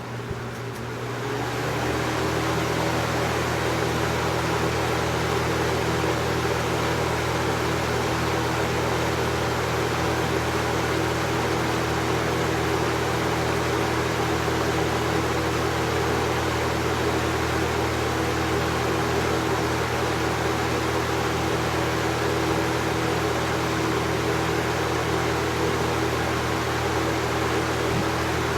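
1996 Holmes 20-inch box fan (model HABF-21, McMillan motor) running. It speeds up over the first couple of seconds, then holds steady: a motor hum under a rush of air from the blade.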